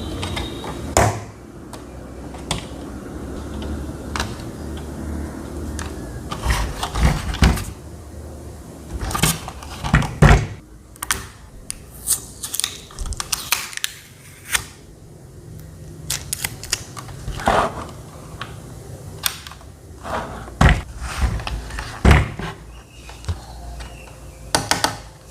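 A steady low hum stops about a second in. It is followed by irregular clicks and knocks, sometimes in quick clusters, from a rechargeable table fan being handled and its controls worked.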